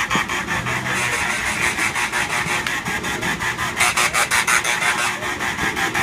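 Kiddie ride running, with a loud, even rattling at about seven strokes a second.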